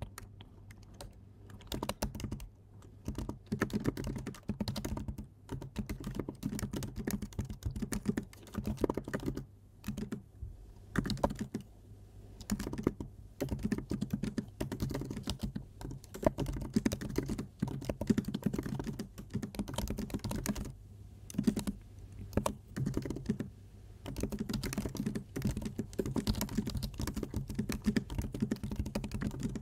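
Typing on a computer keyboard: runs of rapid key clicks in bursts, broken by short pauses.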